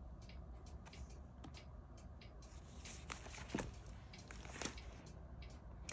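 Faint paper rustling and light taps as planners are handled and shifted on a wooden tabletop, with a couple of sharper clicks a little past halfway.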